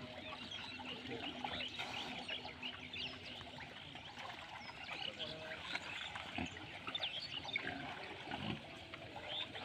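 A herd of black pigs wallowing in mud, with a few low grunts, over a constant chatter of many small high chirping calls.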